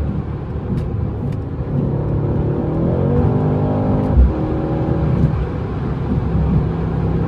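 Stock Mercedes-AMG C63 S engine and exhaust under way, its pitch climbing under acceleration about three seconds in. Just after four seconds it breaks with a low thump at an upshift, then settles into steady cruising.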